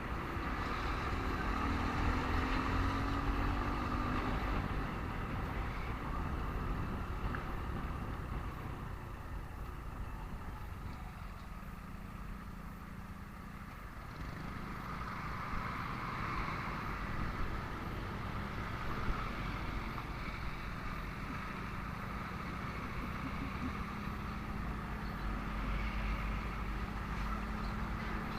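Motorcycle ride through slow traffic: engine running with road noise and surrounding vehicles. An engine note climbs in the first few seconds, and a steady engine hum holds through the second half.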